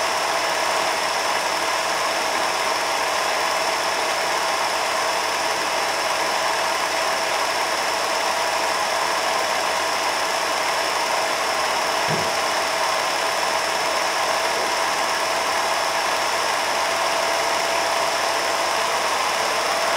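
Film projector running: a steady mechanical whir with a few constant hum tones, unchanging throughout.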